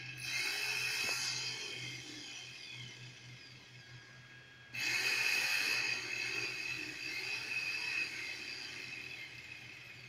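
Bosch electric power tool running with a high whine. It starts about half a second in and dies down over a few seconds, then starts again suddenly near the middle and slowly fades.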